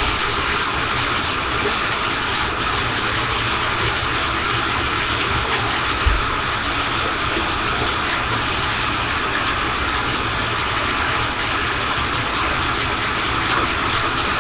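Bathtub faucet running, water pouring into the filling tub as a loud, steady rush. A soft thump about six seconds in.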